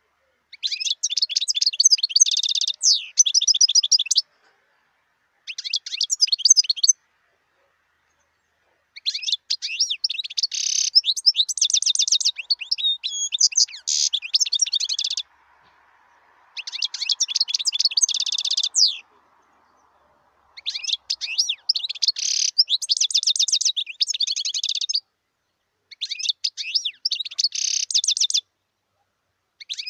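European goldfinch singing: rapid, high twittering and trills in bouts of a few seconds, six in all, separated by short pauses.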